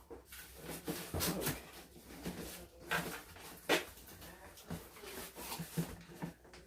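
Cardboard box and foam packing scraping, rubbing and knocking in short, irregular strokes as a tightly wedged TV is worked out of its box.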